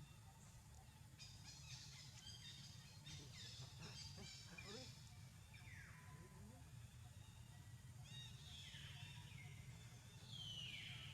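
Faint high animal calls, each falling steeply in pitch, three times in the second half, after a run of quick high chirps, over a steady low hum.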